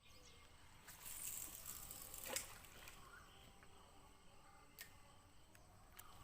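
Near silence: faint outdoor room tone with a couple of faint clicks.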